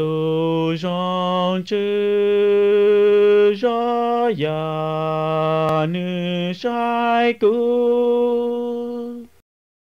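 Station intro music: slow, chant-like sung notes, each held a second or two, moving from note to note with short slides, then cutting off about nine seconds in.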